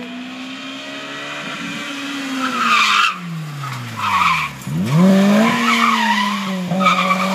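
Honda Civic doing a J-turn: the engine's pitch falls as the car speeds past, then climbs sharply as it revs again. The tyres squeal several times as the car whips round.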